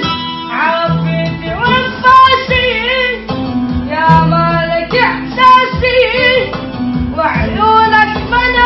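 A young man singing an Arabic song in a high voice with wavering, ornamented pitch, over a plucked-string accompaniment.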